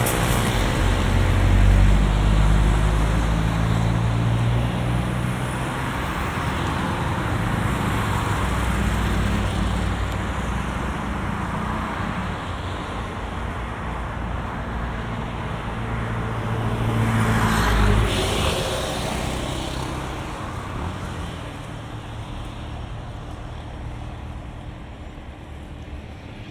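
Road traffic on a multi-lane avenue: cars passing close by, one passing loudest about two-thirds of the way through, the noise thinning out near the end.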